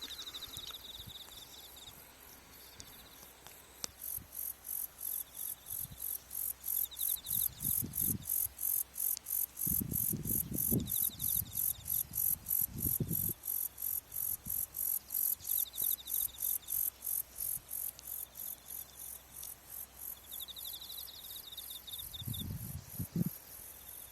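Autumn insects calling from grass: a loud, high chirp repeating about three times a second sets in about four seconds in, over short, softer bouts of a lower trill. A few low thumps come and go.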